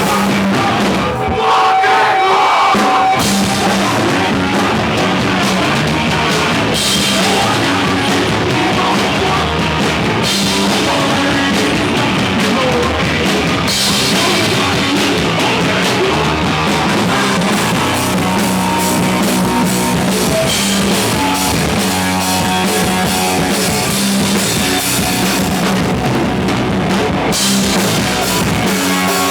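Hardcore punk band playing live: loud distorted guitars, bass and pounding drum kit, with occasional shouted vocals.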